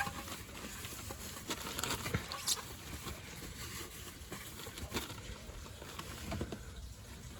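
Brake cleaner dripping and pattering off a freshly sprayed oil pan and filter housing: light pattering with scattered small ticks.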